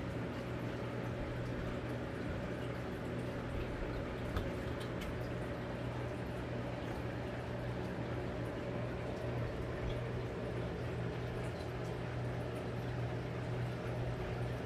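Steady low hum with an even hiss over it, and a few faint light taps.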